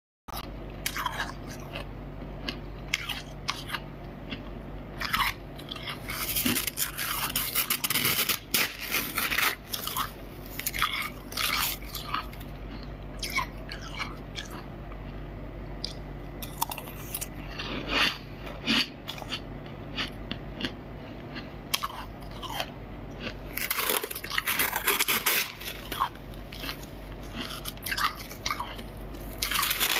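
Freezer frost being bitten and chewed close to the microphone: crisp crunching and crackling in irregular bursts, with heavy runs about a quarter of the way in and again late on, over a steady low hum.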